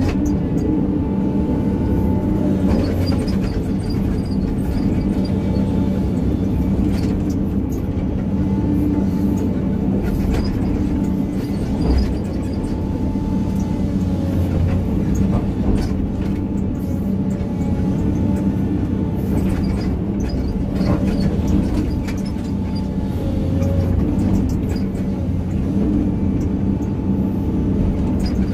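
Excavator's diesel engine running steadily under load, with a higher whine that rises and falls as the hydraulics work the arm. Scattered short knocks and scrapes of the bucket on earth and stone.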